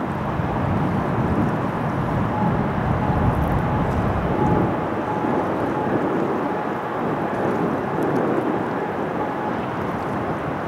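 Wind buffeting the microphone, a steady gusty rumble, with a faint thin steady tone in the background through the middle few seconds.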